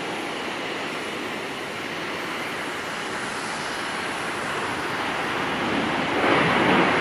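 Steady rushing noise of airliner jet engines, a Boeing 777 taxiing by. About six seconds in, louder irregular gusts of wind buffet the microphone.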